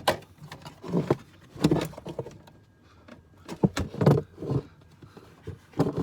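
A plastic battery cover being handled and set into place, with irregular knocks, clatters and short scrapes of plastic against plastic.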